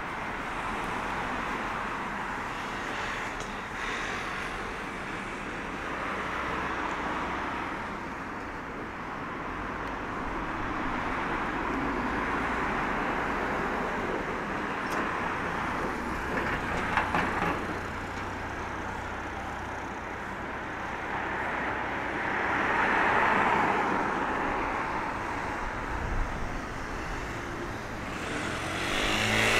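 Street ambience of road traffic: a steady rush of passing cars, swelling as one vehicle goes by about three-quarters of the way through, with a brief patter of clicks a little past the middle.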